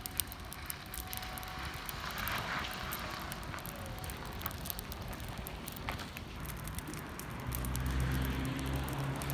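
A car tyre burning in a rubbish fire, crackling with scattered small pops over a soft hiss. About three-quarters of the way through, a low steady engine hum comes in.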